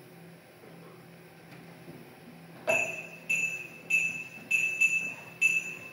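After a hushed pause, a small bell-like metal chime starts about two and a half seconds in and is struck over and over, about every half second, each clear high ring dying away before the next.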